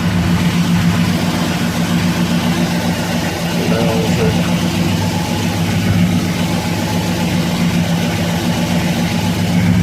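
1965 Ford Galaxie 500 XL V8 idling steadily through dual Flowmaster 40 mufflers with a newly fitted crossover H-pipe and resonators, which the owner fitted to stop popping on lift-off and to lower the volume.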